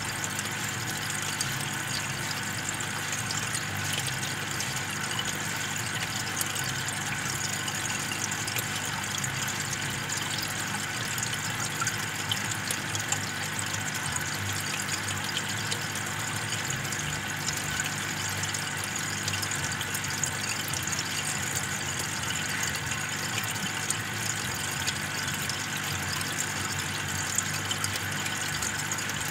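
Aquarium aeration running: an air pump's steady hum with the air stone bubbling and fizzing in the water.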